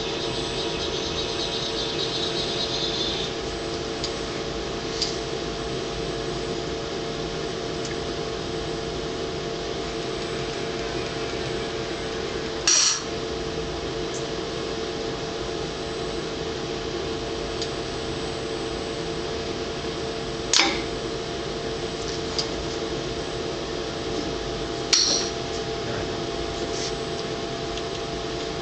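Automated robotic packaging cell running its cycle: a steady machine hum with several fixed tones, broken by three sharp clacks, each with a short hiss, from the valve-driven air cylinders and actuators moving the carriage. The clacks come about a third of the way in, two-thirds in, and near the end, with fainter ticks between.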